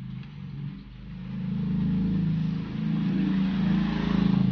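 A motor vehicle's engine running, a low steady hum that grows louder about a second in and stays loud.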